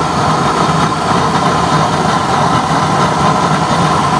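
Homemade used-oil stove burner with a no-weld coupling-reducer nozzle burning strongly: a loud, steady roar of flame and forced air.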